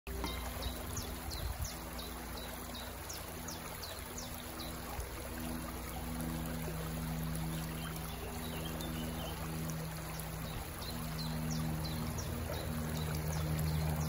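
Water pouring and trickling steadily, with a small bird repeating short high chirps, first in a quick series and again near the end. A low steady hum sits underneath and grows stronger after a few seconds.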